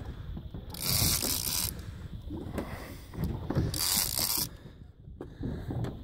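Gold conventional big-game fishing reel worked under load while fighting a fish on a bent rod: its gears click and ratchet throughout. Two loud bursts of high, hissy noise, each about a second long, come about a second in and again near four seconds.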